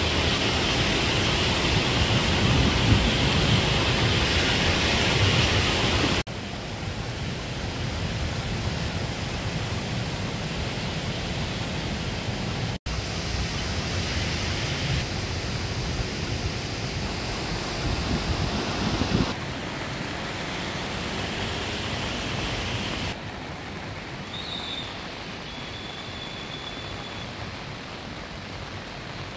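Steady rushing of a rain-swollen, flooded stream, a dense even hiss of fast muddy water with rain. The level steps down abruptly a few times, about a third and two-thirds of the way through.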